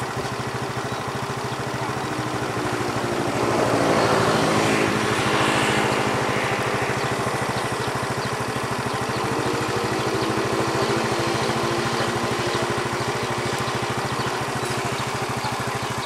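A small engine running steadily, its pitch drifting up and down a little, with a louder rush of noise about four to six seconds in.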